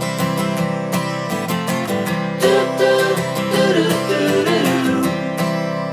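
Background music: a country-pop song with strummed acoustic guitar and a steady beat.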